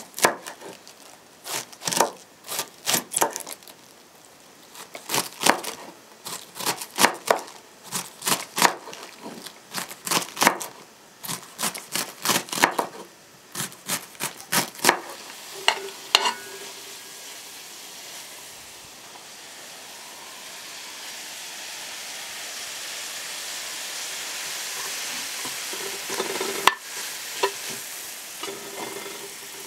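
Kitchen knife shredding cabbage on a wooden cutting board: uneven chopping strokes, a few each second, with short pauses, for about the first half. Then grated beetroot and carrot sizzling steadily as they fry in a metal pan, stirred with a spoon, with a couple of knocks of the spoon against the pan.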